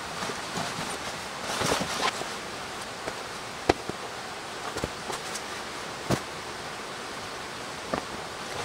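Wool blanket and pillow being handled and smoothed out on a canvas bedroll: fabric rustling, with two sharp clicks, over a steady hiss.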